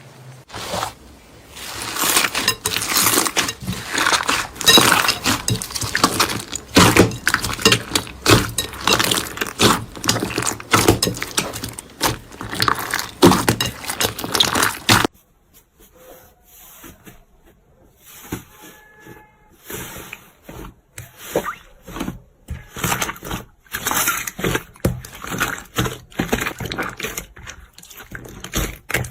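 Hands squeezing and poking slime, making dense crackles and pops. The sound cuts off abruptly about halfway through, then resumes after a short pause as sparser pops and squelches.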